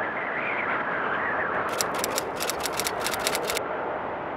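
A fast, even run of sharp clicks, about eight to ten a second for roughly two seconds, over a steady rushing wind-like noise.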